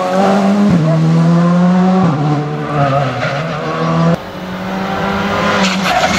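Škoda Fabia rally car engines at high revs, the pitch holding and then stepping with gear changes as a car powers through a corner. After an abrupt cut about four seconds in, a second car's engine grows louder as it approaches.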